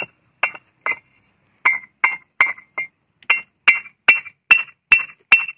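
Two fired red clay bricks knocked together again and again, about two or three strikes a second with a short pause about a second in, each strike giving a sharp, high ringing clink. A clear ring like this, which the seller calls a super sound, is the traditional sign of a hard, well-fired brick.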